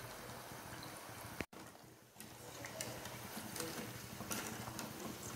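Chakli deep-frying in hot oil with a faint steady sizzle. In the second half come several light clicks of a wire skimmer against the steel kadai as the fried chakli are turned and lifted. The sound drops out for an instant about a second and a half in.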